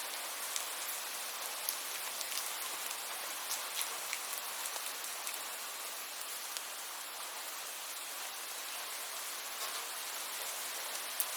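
Steady rain falling: a dense, even hiss with scattered sharp ticks of single drops striking.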